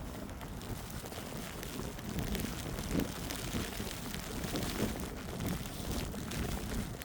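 Footsteps crunching in fresh snow at a walking pace, over a steady low rumble of wind on the microphone.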